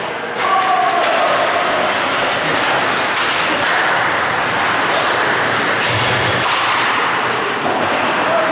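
Indoor ice rink during a hockey game: a steady loud rush of noise, with skates scraping on the ice and a dull thump about six seconds in.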